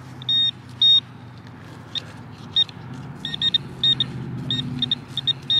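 Garrett Pro-Pointer pinpointer beeping as it is probed around a dig hole for a buried target. It gives two longer beeps near the start, then a quick, irregular run of short high chirps from about three seconds in.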